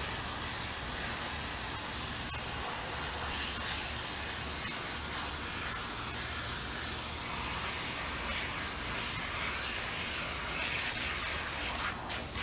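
Garden hose spraying water onto a dog's coat during a bath: a steady, even hiss.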